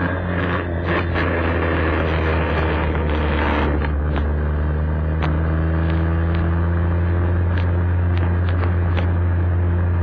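Vespa scooter engine running steadily under way, with a few short sharp clicks scattered through it.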